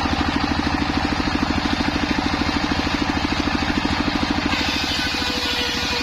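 Single-cylinder stationary diesel engine driving a table circular saw, running with a steady rapid thudding while the blade spins free between cuts. About four and a half seconds in, a higher cutting hiss joins as the blade starts ripping the next plank of waru wood.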